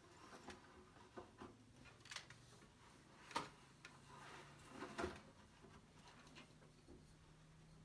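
Faint, scattered clicks and light knocks of a weaver handling wooden bobbins and weft yarn in the warp of a floor loom, the sharpest knock about three and a half seconds in. A faint steady low hum joins about halfway.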